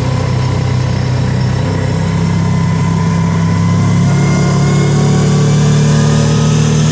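Kawasaki Teryx side-by-side's engine running under way, its note climbing a little in pitch and loudness about halfway through as it picks up speed.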